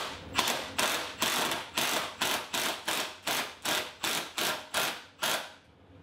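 Cordless drill driving a screw through the stool leg into the footrest, in even bursts about two to three a second that stop shortly before the end.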